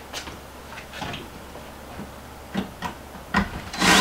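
Light wooden knocks and taps as a wooden upper kitchen cabinet is shifted and held against the wall, then a short loud noisy burst near the end.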